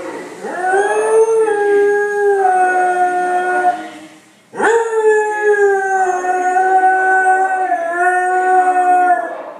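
Beagle howling: two long howls, each rising quickly at the start and then sliding slowly down in pitch, with a short pause for breath between them a little before halfway.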